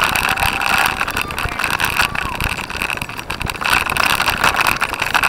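Cyclocross bike rolling fast over bumpy grass: a constant clatter and rattle of the bike and its mounted camera, with tyre and chain noise and wind on the microphone.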